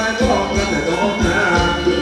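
Live band playing Thai ramwong dance music, with a drum beat under sustained melody instruments.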